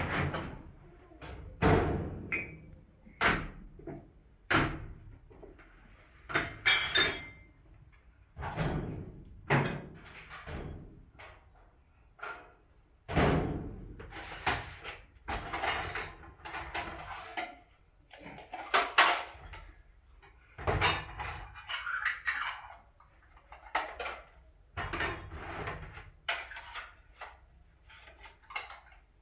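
Irregular knocks and thuds, roughly one every second or so, some with a short scrape after them.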